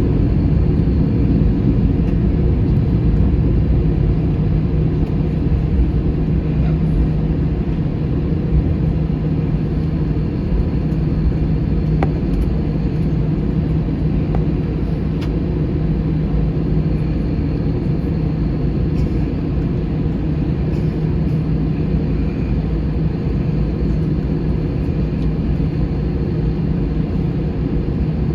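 Airbus A321 cabin noise heard from a passenger seat: the jet engines and airflow make a loud, steady rumble with a constant low hum, holding even throughout.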